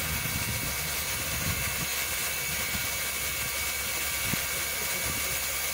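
Steam locomotive standing with steam venting, giving a steady hiss over a low uneven rumble.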